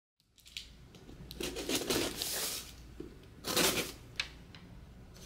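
Cardboard shipping box being opened by hand: packing tape tearing and cardboard rustling, with two longer bursts, the first about a second and a half in and the second near the four-second mark.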